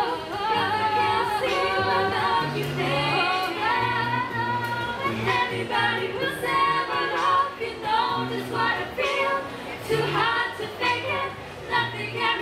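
An amplified a cappella group singing, with female voices on the melody over held bass notes and beatboxed percussion clicking along in a steady beat.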